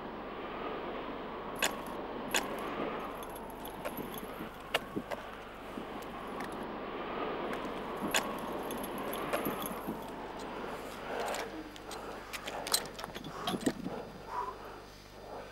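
Climbing hardware clinking and scraping: sharp metallic clicks of carabiners, crampons and gear against the rock and a fixed-rope aluminium ladder, coming thicker near the end. Under them, a steady rushing noise rises and falls in a slow rhythm.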